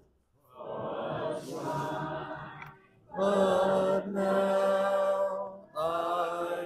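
Unaccompanied hymn singing by a church congregation, in three phrases of long, slow held notes.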